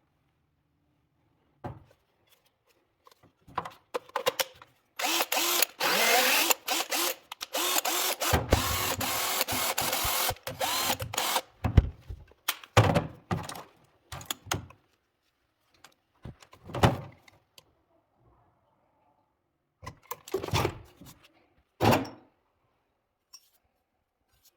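Cordless drill motor run in short trigger bursts and one longer run of about five seconds, its pitch rising and falling as it speeds up and slows down, with knocks in between.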